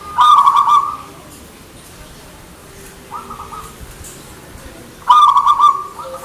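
Zebra dove (perkutut) cooing: two loud phrases of rapid, pulsed coo notes, one right at the start and one about five seconds in, with a fainter phrase between them.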